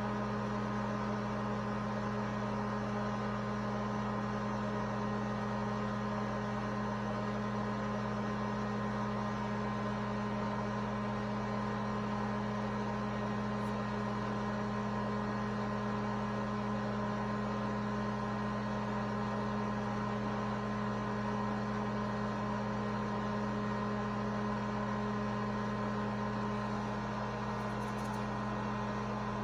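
A steady hum made of several fixed tones over a faint hiss, with no other sound standing out.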